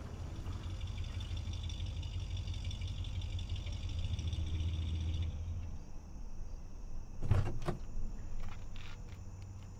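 An old Cadillac's engine idling, then switched off about six seconds in. A car door slams shut with a loud thump about a second and a half later, followed by a few small clicks.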